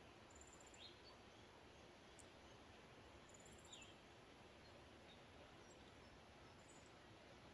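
Near silence outdoors: a faint steady hiss, with three faint, very high, short pulsed chirps about three seconds apart and a couple of brief falling chirps, from small animals such as insects or birds.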